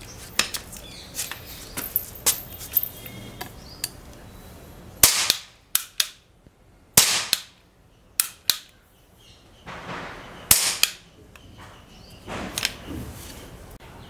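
Toy cap pistol fitted with a long metal pipe barrel, first clicked and handled while being loaded, then fired: several sharp cap bangs, three loud ones a couple of seconds apart with smaller cracks between them and near the end.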